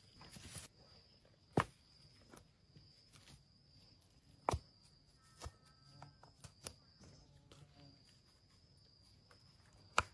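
About five sharp, short knocks spaced irregularly, over a faint, steady, high-pitched insect drone.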